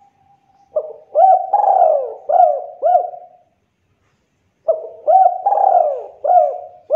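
Spotted dove (tekukur) cooing: two phrases of four or five low coos each, the first starting about a second in and the second about five seconds in.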